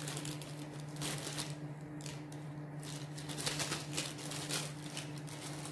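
Small plastic bags of round diamond-painting drills being handled, crinkling and rustling in irregular bursts. A steady low hum runs underneath.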